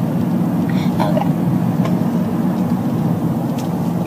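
Steady road and engine rumble inside the cabin of a moving car, with a brief faint voice about a second in.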